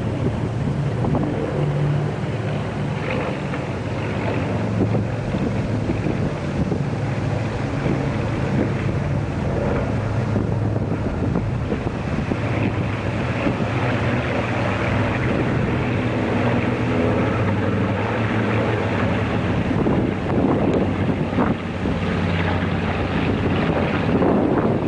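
Piston-engined propeller planes flying overhead, their engines a steady low hum, with wind buffeting the microphone.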